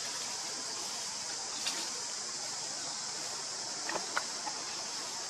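Steady hiss of outdoor forest ambience, with a couple of faint clicks about four seconds in.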